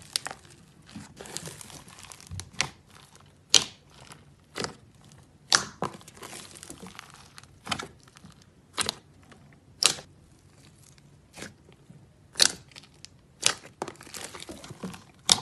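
Thick white slime with crunchy mix-ins being pressed, poked and pulled by hand: sharp crackling pops at uneven intervals of about a second, with softer crinkling and crunching between.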